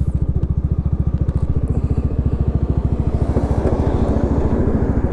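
Yamaha XMAX 300's single-cylinder engine idling through a custom-built exhaust with a gutted muffler, a steady, even putter of about a dozen pulses a second. A passing truck's rumble joins in about three seconds in.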